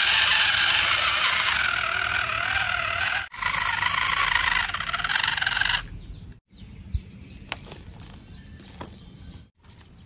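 Toy RC truck's small electric motor and gearbox whining as it drives loaded through sand, the pitch wavering as the load changes. The whine cuts out briefly about a third of the way in and stops for good about two-thirds in, leaving only faint clicks and scrapes of sand.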